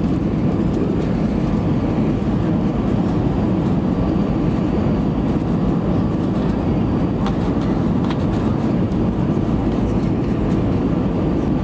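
Steady, even cabin noise inside an Airbus A320 on final approach: engine and airflow noise with the flaps and landing gear extended.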